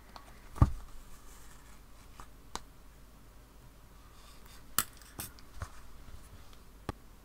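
Hands working a needle and thread through fabric on a small mending loom: a faint rustle of thread with scattered light clicks and taps. The loudest is a knock about half a second in.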